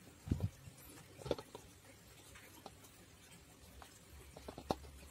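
Light knocks and clicks of a plastic bottle and plastic pipe being handled on a tabletop: a dull thud about a third of a second in, a sharper knock just over a second in, and a few small clicks near the end.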